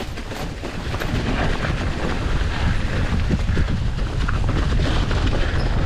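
Mountain bike riding down a rough trail: continuous rumbling and rattling of tyres and frame over the rough ground, with frequent knocks from bumps.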